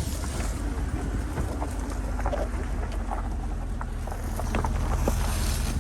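A car engine running at low speed, heard from inside the cabin as it crawls over a rough dirt track, with scattered knocks and rattles.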